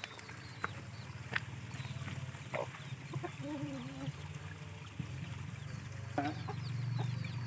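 A chicken clucking, with a few sharp knocks over a steady low hum.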